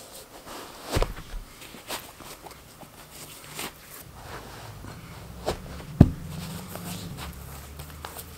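A pair of sneakers being put on and laced up on a carpeted floor: scattered soft knocks, shoe scuffs and lace rustles, the loudest a thump about six seconds in. A low steady hum comes in about four seconds in.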